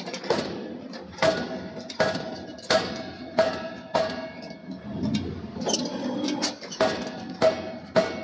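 Hammer blows on steel in forging, each strike ringing, struck steadily about once every 0.7 seconds with a short pause around the middle.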